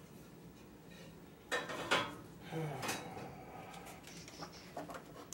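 Light metal clinks and knocks, a few of them between about a second and a half and three seconds in, from parts being handled against a steel pellet smoker, followed by faint rustling.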